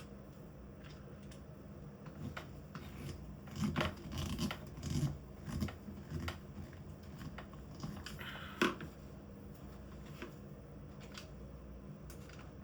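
Small screws being turned by hand into the plastic housing of a cordless drill: short scraping, rubbing bursts and small clicks, with one sharper click about eight and a half seconds in.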